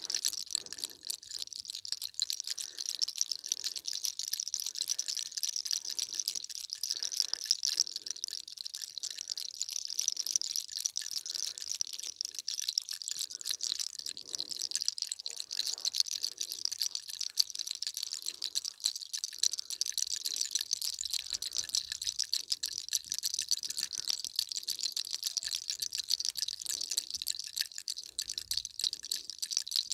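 Hair cracking: fingers rubbing and twisting locks of long hair close to the scalp, giving a dense, fast, high crackling that runs on without pause.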